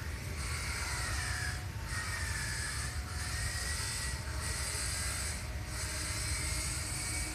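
A high, hissing buzz that comes in pulses about a second long with short breaks between them, over a steady low rumble.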